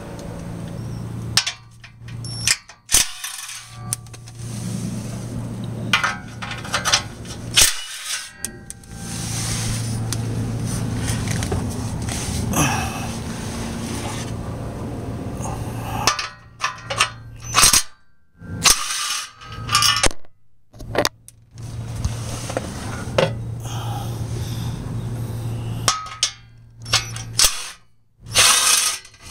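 Scattered metallic clicks and clanks from work on a car's exhaust and catalytic converter, over a steady low hum that cuts out several times.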